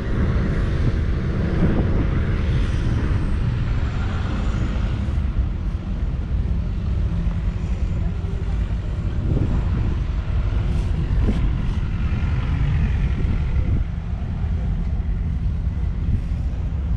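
1949 Field Marshall Series 2 tractor's 5.1-litre single-cylinder two-stroke diesel engine running steadily at idle, a dense, fast low beat.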